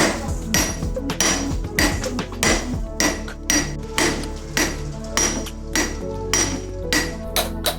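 Hand hammer striking steel on an anvil in a steady rhythm, about two to three blows a second, each blow ringing with a metallic clang as the knife blank is forged.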